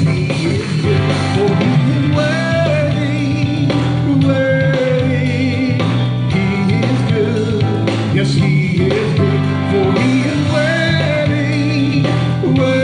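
Gospel praise-and-worship song: a man singing a melody into a microphone over instrumental accompaniment.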